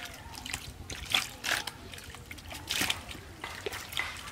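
Water splashing in short bursts at a pond's surface as a hooked fish is pulled up on a bamboo pole and line.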